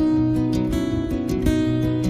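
Background music: strummed acoustic guitar playing a gentle tune.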